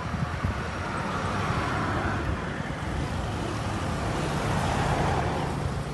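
Street traffic: cars passing on the road with a steady tyre and engine rush that swells twice as vehicles go by, loudest near the end.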